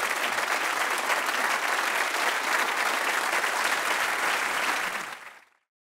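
Audience applauding steadily, fading out quickly about five seconds in.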